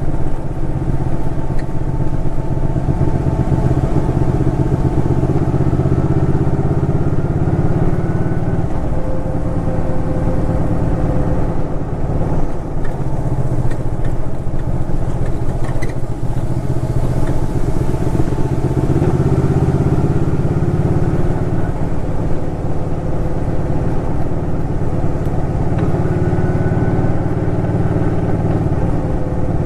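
Suzuki Intruder Classic 400's V-twin engine running under way, its pitch rising and falling several times as the bike speeds up, slows and changes gear.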